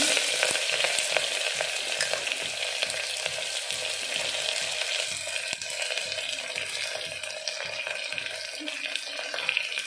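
Sliced onion and green chillies hitting hot oil and sizzling. The sizzle jumps up loud as they go in, then settles into a steady frying hiss that eases off slowly.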